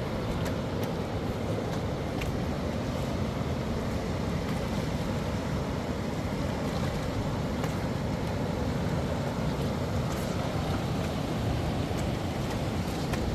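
Fast mountain river rushing steadily, with a few faint ticks over it.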